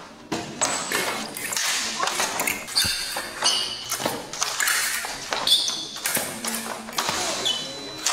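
Foil blades clashing in a series of sharp metallic pings and clicks, with fencers' feet stamping and shuffling on the piste and voices in a large hall.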